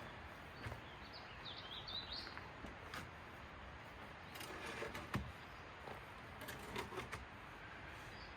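Faint bird chirps over a quiet outdoor background, with a few scattered light knocks and clicks.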